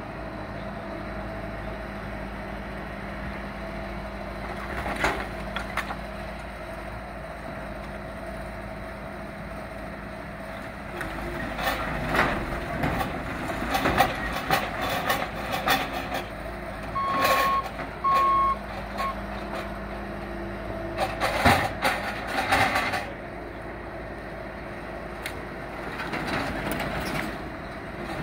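Bobcat skid-steer loader running steadily as its grapple dumps demolition debris, with bursts of wood and metal clattering and crashing into a steel dumpster. The machine's backup alarm beeps a few times about two-thirds of the way in.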